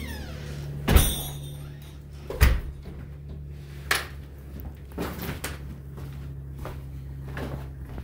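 A few sharp knocks and thumps over a low steady hum: the loudest about a second in, another about a second and a half later, then smaller ones.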